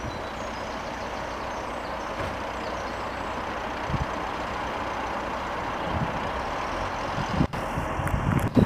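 A passing train makes a steady rumble that grows slightly louder. Wind buffets the microphone in the last second.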